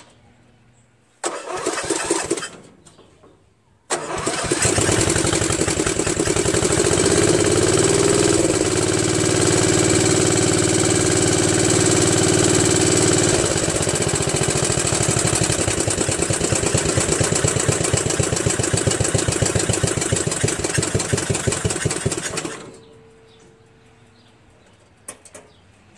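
Murray Select 13.5 HP riding mower's engine cranked briefly, then started on a second try about four seconds in and ran steadily, its note shifting partway through, before being shut off near the end. The owner has measured low compression on this engine (75 psi) and suspects worn valves.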